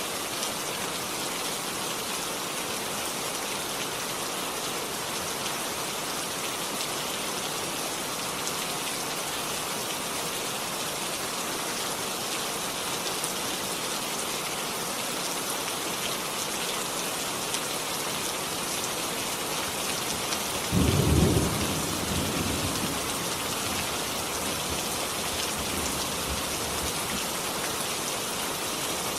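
Steady rainfall hissing. About two-thirds of the way through, a clap of thunder breaks in suddenly as the loudest moment, then rumbles away over several seconds.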